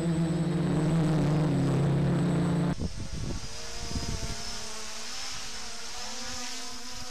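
A multicopter's electric motors and propellers running. First comes a loud, steady hum; then, after an abrupt drop about two and a half seconds in, a thinner buzz whose pitch wavers as a quadcopter flies overhead, with wind buffeting the microphone briefly.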